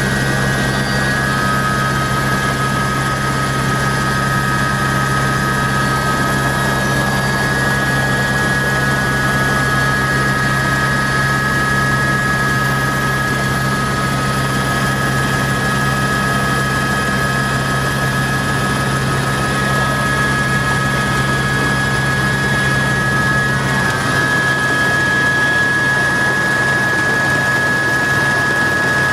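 Helicopter running steadily, likely heard from inside the cabin during a sightseeing flight: a constant low drone with a steady high whine over it.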